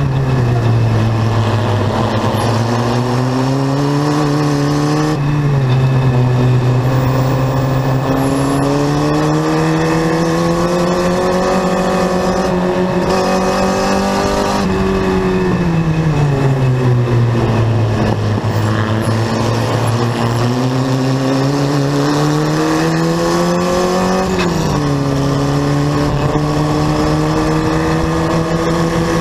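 Onboard sound of a Formula Vee race car's air-cooled Volkswagen 1600 flat-four engine pulling hard under racing load. Its pitch climbs slowly, falls away for a few seconds around the middle as the car slows for a corner, rises again, then drops sharply at an upshift near the end before climbing once more.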